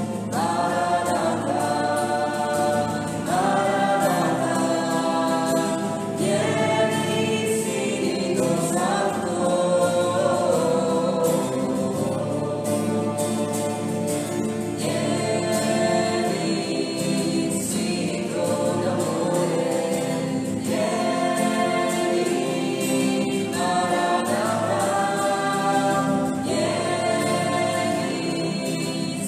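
A choir singing a slow worship song in long held phrases.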